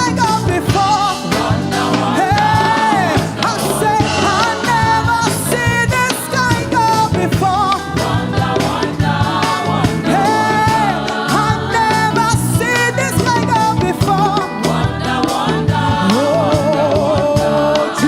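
Live gospel praise and worship music: a singer with vibrato over a full band with drums.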